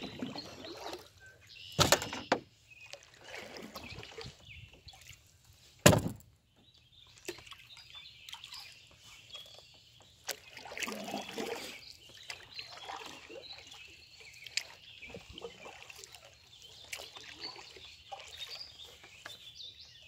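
Two loud knocks against a canoe's hull, about two and six seconds in, with small water sloshes around the boat and faint birdsong.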